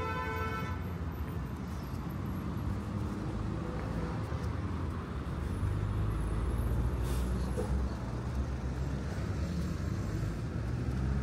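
City road traffic: cars and buses running along the avenue in a steady low rumble, with a vehicle horn toot that ends just after the start and a vehicle passing louder around the middle.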